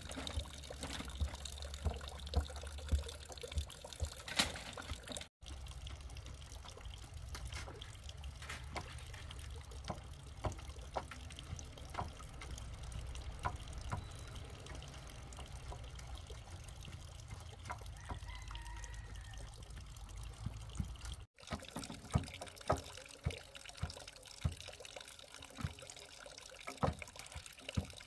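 Water trickling and pouring steadily, with scattered light knocks and taps throughout.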